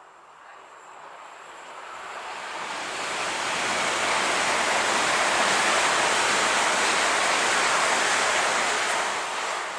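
A passing train: an even rushing noise swells over about four seconds, holds loud, then starts to fade near the end.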